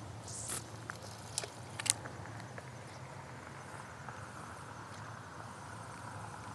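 Steady rush of a fast-flowing river, with a few light clicks and scuffs in the first two seconds.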